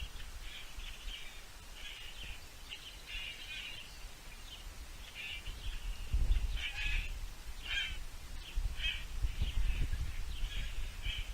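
Birds calling outdoors: many short, repeated chirps and harsh calls. A low rumble runs underneath and grows louder about six seconds in.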